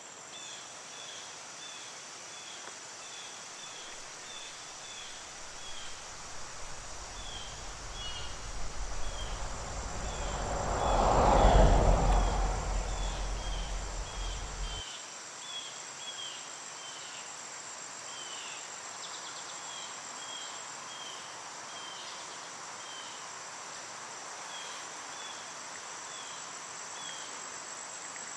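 Insects buzzing steadily at a high pitch, with short chirps repeating about one or two a second. About halfway through, a rushing sound with a low rumble swells to a peak and fades, its rumble cutting off suddenly.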